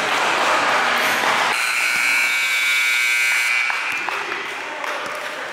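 Gym scoreboard buzzer sounding steadily for about two seconds, starting about a second and a half in: the horn at the end of the game, with the clock run down to zero. Before it comes about a second and a half of loud, mixed gym noise.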